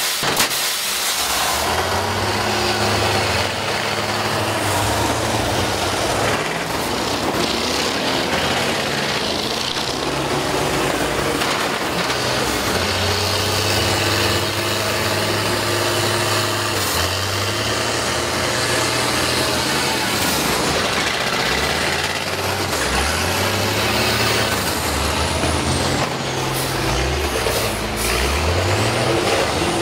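School bus engines running and revving in a demolition derby, their pitch rising and falling again and again, most often near the end. A sharp crash of metal on metal comes right at the start as two buses meet.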